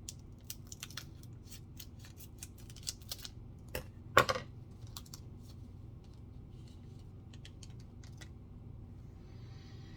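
A trading card pack's wrapper being torn open and crinkled: a quick run of small sharp crackles, with one louder snap about four seconds in, then it goes quieter.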